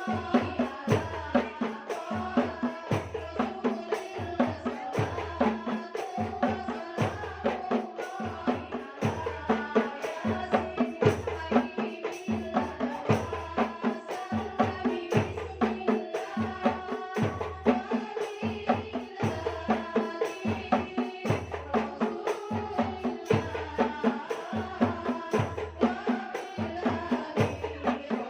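Sholawat, Islamic devotional singing, by a group of voices over a steady, fast drum rhythm of hand-struck frame drums with deep thumps.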